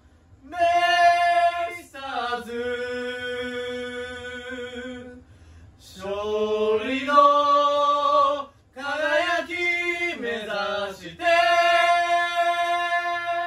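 Unaccompanied wordless singing in phrases of long held notes, with short gaps between phrases.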